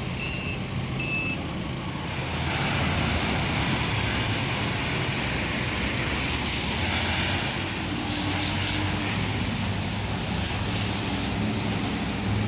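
Street traffic on wet pavement: engines running low, with a steady hiss of tyres on the wet road from about two seconds in. A vehicle's reversing beeper beeps twice at the start.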